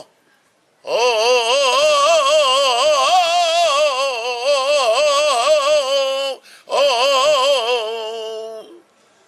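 A man singing a flamenco saeta solo and unaccompanied, the voice winding through long, wavering melismatic ornaments. It comes in about a second in, breaks briefly for breath partway through, and ends on a long held note that sinks slightly and fades.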